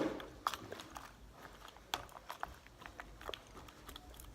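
Gum being chewed close to the microphone: irregular wet smacks and sharp little clicks.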